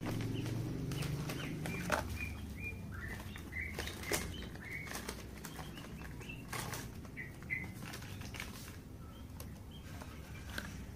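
Handling noise of a small wired electronic module and its cardboard box being turned over and opened by hand: scattered clicks and light rustling over a low steady hum, with short high chirps here and there.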